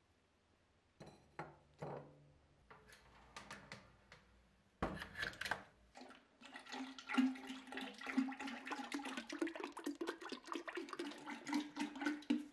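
A few clinks and knocks, then about five seconds in, boiled linseed oil starts pouring from a plastic jug into a tall galvanized steel duct pipe, splashing steadily, with a hollow tone from the pipe that rises a little as it fills.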